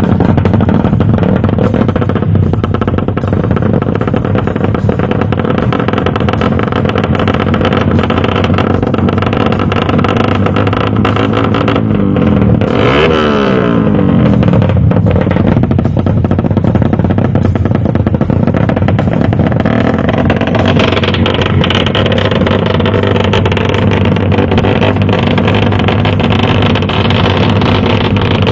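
Motorcycle engines running loud and continuously, with one motorcycle passing close about halfway through, its engine pitch sliding as it goes by.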